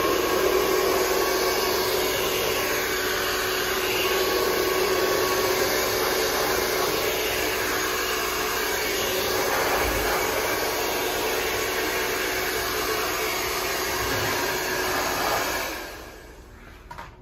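Handheld hair dryer running: a steady rush of blown air with a low hum in it, cutting off sharply near the end.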